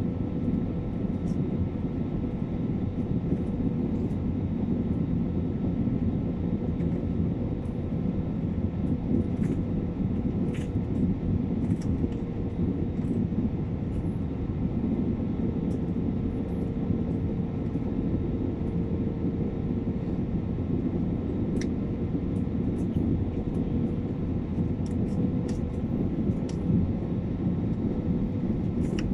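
Steady cabin noise inside an Airbus A320neo on descent: a low, even roar from its Pratt & Whitney PW1100G engines and the airflow over the fuselage, with a faint steady hum.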